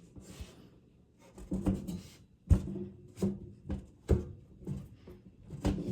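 Parts of a metal shelving unit knocking and clunking as they are forced and tapped into place: about seven irregular knocks, the loudest about two and a half seconds in, each with a short low ring.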